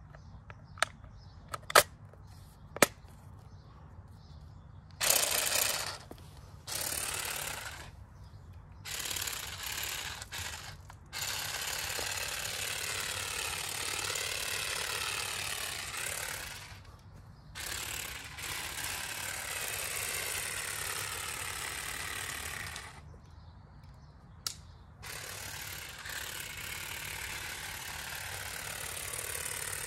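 Parkside PGSA 4 A2 cordless shrub shears running in bursts of one to five seconds with short pauses, the reciprocating hedge blade chattering as it trims a thuja. A few sharp clicks come in the first three seconds, before the cutting starts.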